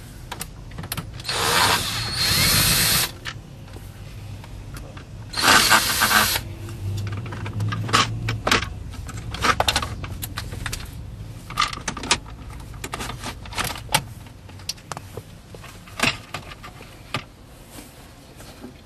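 A small power tool runs in two short bursts, the first about two seconds long and the second about a second, followed by scattered clicks and knocks of parts being handled.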